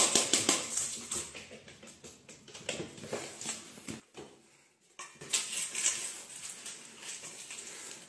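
Dry kibble and treats rattling in a stainless steel bowl in quick, dense clicking runs, loudest at the start and fading, with a short pause about four seconds in.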